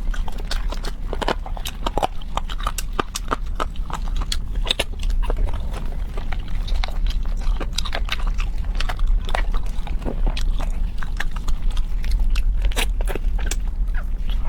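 Close-miked eating sounds: a person chewing and biting, with many quick wet clicks and crunchy crackles, over a steady low hum.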